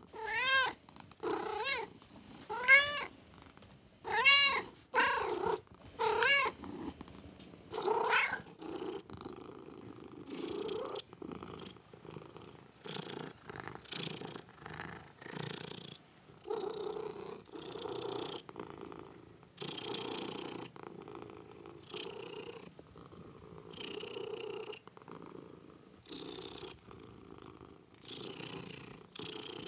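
Domestic cat making several short meows that rise and fall in pitch over the first eight seconds, then purring steadily, pulsing with its breaths, with a few soft chirps.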